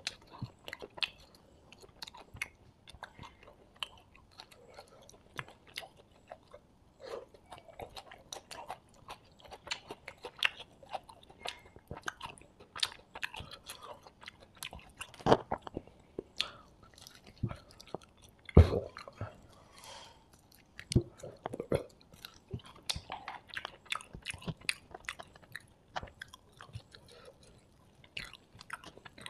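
Close-miked chewing and biting as a man eats fried rice and fried quail by hand: irregular wet smacks, clicks and light crunches, with two louder thumps about 15 and 18 seconds in.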